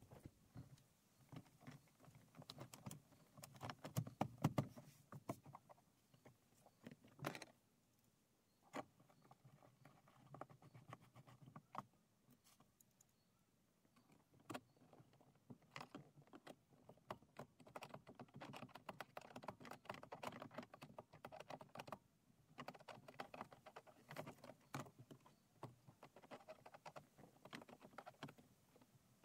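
Faint, irregular clicking and tapping of hand tools working against the car's dashboard plastic, in scattered clusters with a couple of short pauses.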